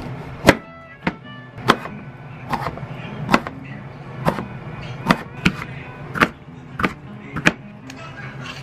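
Kitchen knife slicing through a red bell pepper and knocking on a cutting board: about eleven sharp, separate chops at an uneven, unhurried pace, stopping a little before the end, over soft background music.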